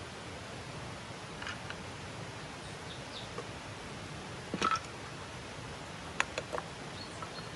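A few small clinks and knocks of things being handled on a wooden camp table over a steady outdoor hiss. The loudest is a short ringing clink a little past halfway, followed about a second and a half later by three quick sharp clicks.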